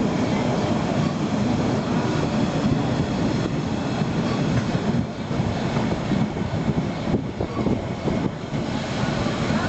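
The Molli narrow-gauge steam train rolling into the station: a steady heavy rumble of the train, with a few clicks from the wheels over the rail joints, easing off slightly in the second half.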